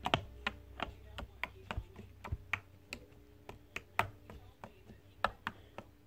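Fluffy slime being squished and stretched by hand on a plate, giving a run of small sharp clicks and pops, several a second at an uneven pace.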